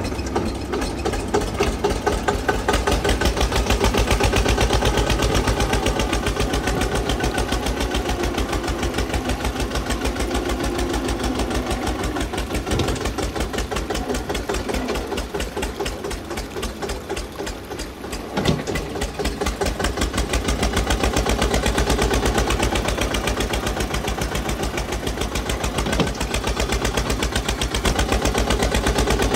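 Diesel tractor engine sound effect, running steadily with a fast, even beat and a few sharp knocks along the way.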